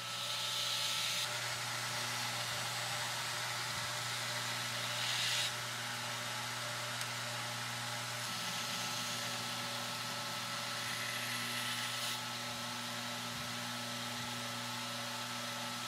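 Belt grinder motor running steadily, with a hiss of steel on the abrasive belt during several passes as the main bevels of a Damascus knife blade are ground: one near the start, a longer one ending about five seconds in, and another at around eleven seconds.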